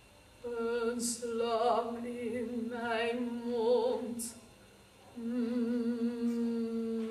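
A young woman singing solo and unaccompanied in a classical, operatic style with vibrato. A phrase of several notes breaks off about four and a half seconds in, and after a short pause she starts a long, mostly steady held note.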